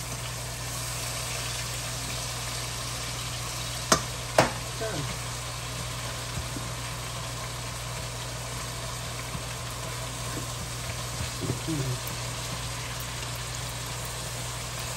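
Ground beef and diced onions sizzling steadily as they brown on high heat in a stainless steel skillet, stirred with a spatula. About four seconds in come two sharp knocks close together, and a steady low hum runs underneath.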